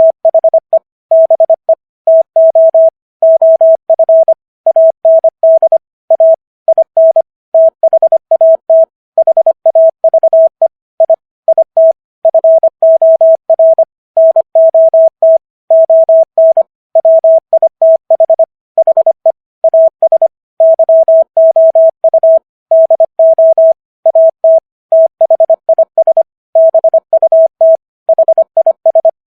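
Morse code sent at 25 words per minute: a single steady mid-pitched tone keyed on and off in rapid short and long elements (dits and dahs), with brief pauses between words. It spells common English words for copying practice.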